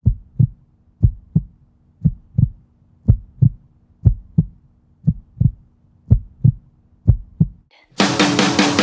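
Heartbeat sound effect: paired low thumps, lub-dub, about once a second, eight beats in all. Near the end, loud rock music starts.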